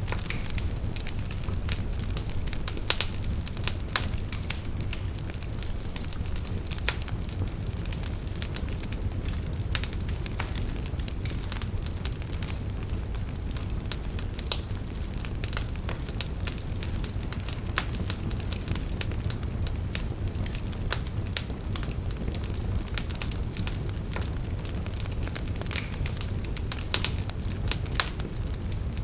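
Wood bonfire burning, with a steady low rumble of flames and frequent irregular crackles and pops from the burning wood.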